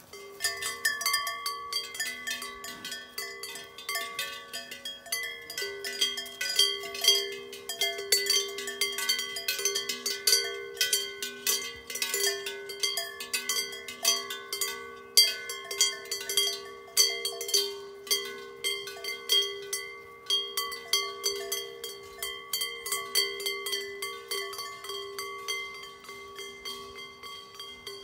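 Several cowbells clanking on walking cows: dense, irregular quick strikes with their ringing tones hanging on underneath.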